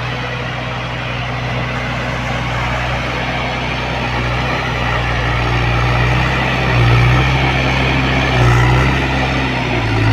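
Heavy diesel engine running steadily, swelling briefly twice near the end as it takes load.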